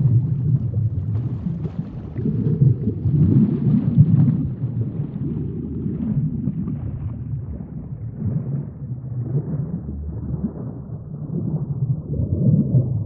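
Sea ambience: a low, muffled rumbling wash of water that swells and fades every second or two.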